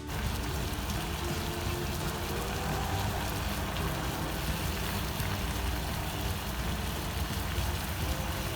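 Ginger in a pot of water boiling on the stove: a steady bubbling rush with a low rumble.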